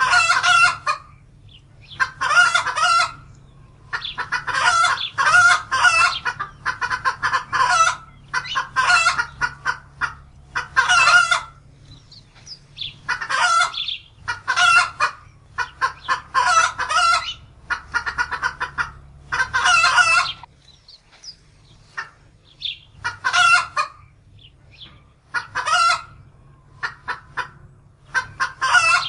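Domestic hen cackling in repeated bouts of rapid clucking calls, each bout about a second long with short pauses between.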